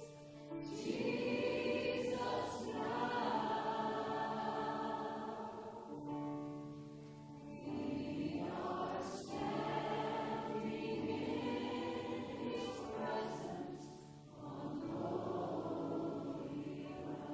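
Congregational worship singing with a choir of voices and accompaniment, in sustained phrases with short breaths between them.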